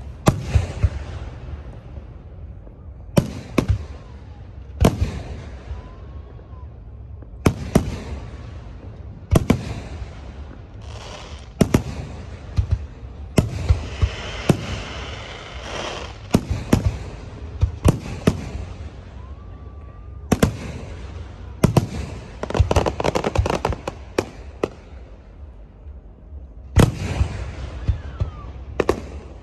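Aerial firework shells bursting, one sharp boom after another at an uneven pace, each trailing a rolling echo. About halfway through comes a stretch of dense crackling, and a quick cluster of bangs follows about two-thirds of the way in.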